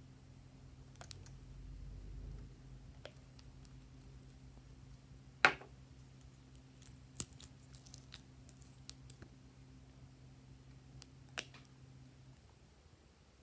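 Small clicks and taps of glass nail polish bottles and their screw caps being handled and opened, with one sharper click about five and a half seconds in. A faint low steady hum runs underneath and stops near the end.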